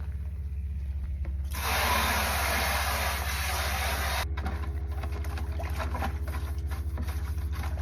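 Garden hose spraying water for about three seconds, rinsing out a bucket, starting about a second and a half in and shut off abruptly. A steady low hum runs underneath.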